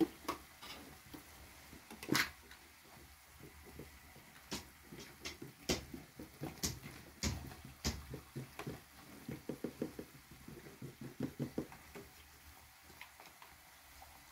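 Hands pressing and sealing filled dough pastries on a pastry board: scattered soft taps and pats, a sharper knock at the start and another about two seconds in, then a quick run of soft taps in the second half.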